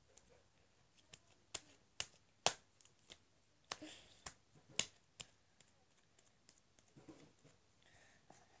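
Very sticky slime being squeezed and pulled apart by hand, giving off about a dozen irregular sharp clicks and pops, loudest between about two and five seconds in.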